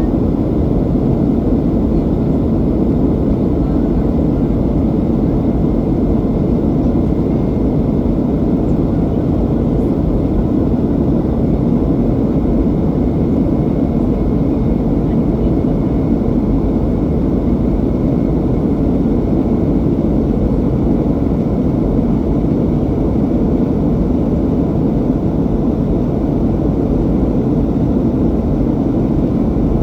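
Cabin noise of a Boeing 737-800 climbing after takeoff: a steady, even rumble of its CFM56-7B turbofan engines and rushing air, heard from inside the cabin.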